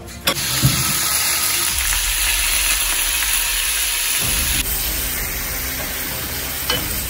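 Food sizzling as it fries in hot oil in a pan: beef, onions and diced carrots. The sizzle starts abruptly and runs steadily, and its sound changes about four and a half seconds in.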